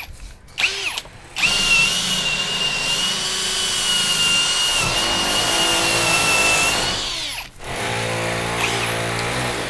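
DEKTON ID90BL cordless drill boring into a hard wooden log with a wood bit, its motor running smoothly at a steady high whine for about six seconds, starting a second or so in and stopping near the end. A lower-pitched hum follows.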